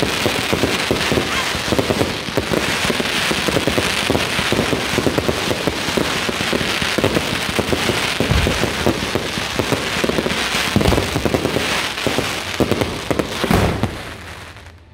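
Firecrackers going off in a dense, rapid crackle of countless pops, with a few heavier bangs mixed in, dying away near the end.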